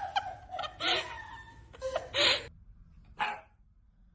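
Dog barking: a few short barks about a second apart.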